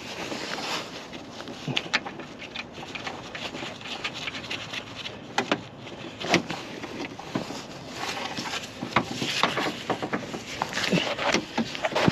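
Irregular metallic clicks, knocks and scrapes of hand work on a car's front strut top mount and its nut. They come more often in the second half.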